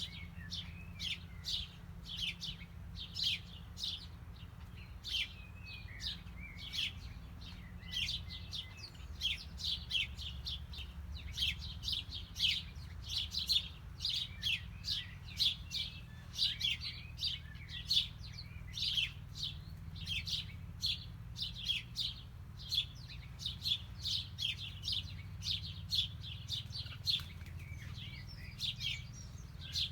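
Birds chirping in a steady stream of short, high chirps, several a second, over a low steady rumble.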